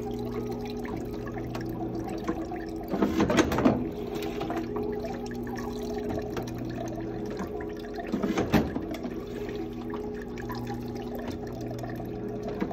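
Zummo Z06N automatic citrus juicer running with a steady motor hum while it presses lemons, juice trickling into a glass jug. Two louder clattering bursts come about three seconds in and again about eight seconds in, as it takes in and presses the next fruit.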